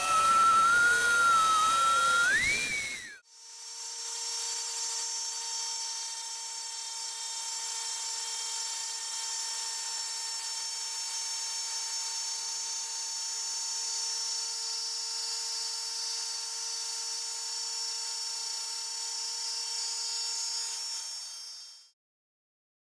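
Wood router spindle on a homemade CNC machine cutting a groove in plywood, its motor whine wavering in pitch as the load changes. About three seconds in it cuts off abruptly and gives way to a steadier, thinner machine whine made of many high tones, which stops shortly before the end.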